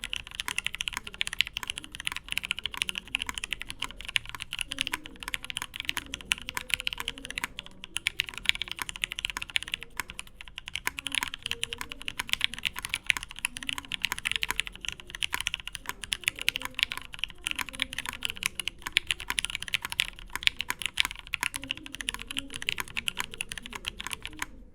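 Matrix 8xv2.0 custom mechanical keyboard being typed on continuously at a quick, steady pace. It has vintage Cherry MX Black linear switches lubed with Krytox 205g0 on 55 g springs, an aluminium plate and Cherry G81-3116 keycaps, giving a dense stream of key clicks and bottom-out knocks.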